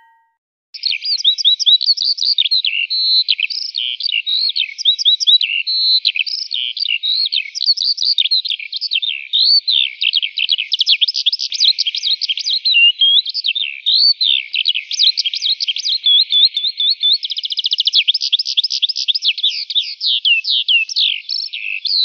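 A songbird singing a long, fast, varied song of high chirps, whistled glides and trills, starting about a second in, with a rapid trill about two thirds of the way through.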